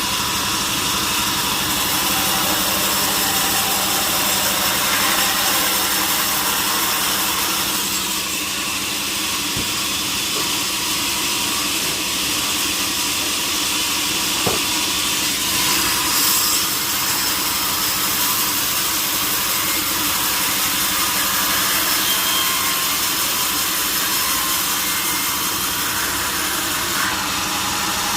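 A motor-driven saw runs steadily while cutting through a log, with one short tick about halfway through.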